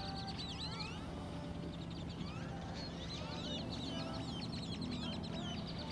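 A flock of birds calling: many quick, overlapping chirps and squeaky whistles running on without a break, over a steady low hum.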